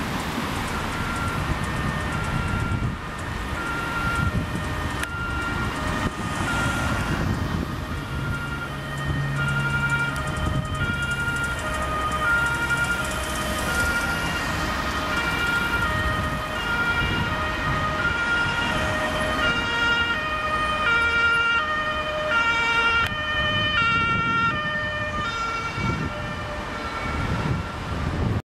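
Two-tone siren of a Dutch fire engine on a priority run, alternating between a high and a lower note about every half second, with engine and traffic rumble underneath.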